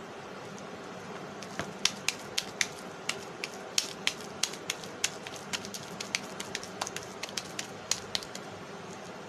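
Hands patting and pressing raw spiced beef mince into a flat chapli kabab patty between the palms: a run of short, sharp pats, about three or four a second, from about a second and a half in until near the end. A steady background hiss runs underneath.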